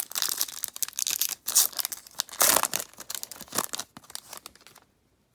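A trading card pack wrapper being torn open and crinkled by hand, a run of irregular tearing and rustling that dies away about four to five seconds in.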